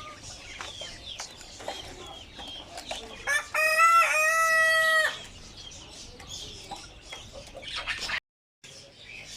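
A rooster crows once, loud, for about two seconds starting about three seconds in, over many small birds chirping.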